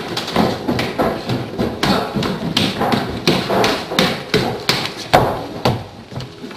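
Footsteps knocking and thudding irregularly on a wooden staircase as people climb it.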